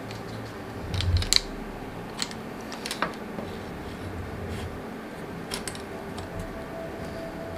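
Clicks and light knocks of a bicycle stem, plastic headset cover and spacers being fitted by hand over a fork steerer with brake hoses routed through. A cluster of sharp clicks with a dull thump comes about a second in, followed by a few scattered lighter clicks.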